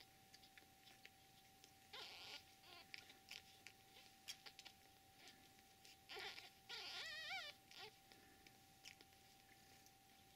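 Newborn kittens nursing and jostling: faint soft clicks and rustles of suckling and fur, with short breathy squeals near two and six seconds. About seven seconds in, a kitten gives a brief wavering high squeak. A faint steady whine runs underneath.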